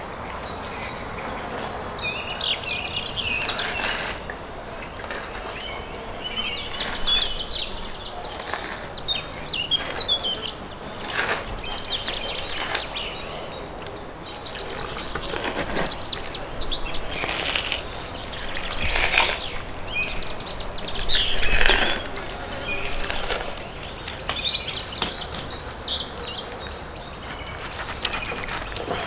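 Wild birds singing outdoors: busy chirping phrases, with one thin high note repeated about every second and a half. Occasional sharp knocks and clatters are mixed in, the loudest near the end.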